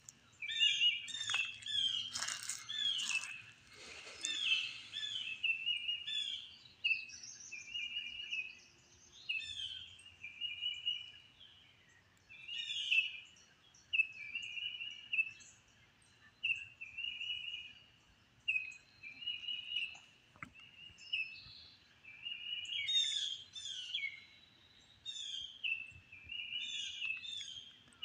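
Several songbirds singing in a spring forest, short chirping phrases repeating and overlapping throughout. There is a brief noisy burst about two seconds in.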